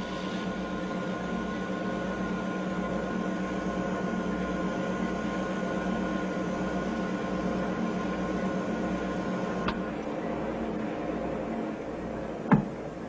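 Steady electronic hum of laboratory machinery with two high whining tones over it. The whine cuts off with a click about ten seconds in, the hum carries on more quietly, and a single sharp knock comes near the end.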